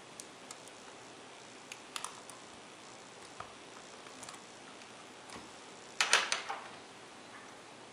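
Light plastic clicks and taps from a pick tool working the keyboard's retaining clip on an Acer Aspire One D250 netbook, with a quick cluster of louder clicks and rattles about six seconds in as the keyboard is pried.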